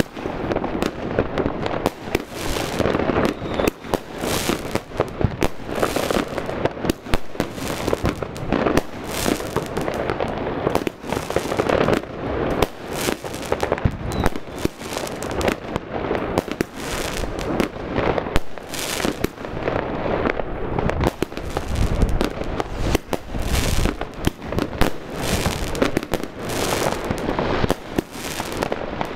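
Spring Wind 100-shot firework cake firing its finale salvo: a rapid, unbroken string of shots and bursts, one close on another, with glittering stars popping overhead.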